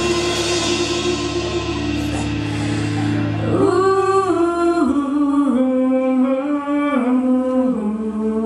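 Live band playing, with a woman singing into a microphone over bass guitar and drums. Held notes give way, about three and a half seconds in, to a sung phrase of short stepped notes that falls in pitch.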